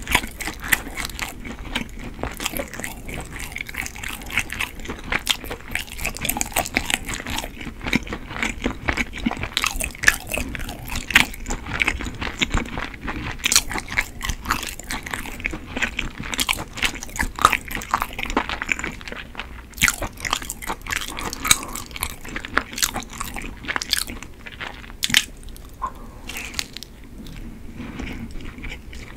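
Close-miked chewing and biting of chewy, crumb-coated Korean rice cake (tteok): a dense, steady run of small mouth clicks and snaps.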